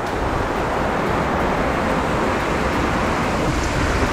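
Torrential rain pouring steadily on a sailing yacht and the sea around it, an even hiss with no breaks.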